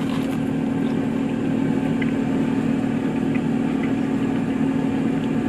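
Steady low mechanical hum, like an idling engine.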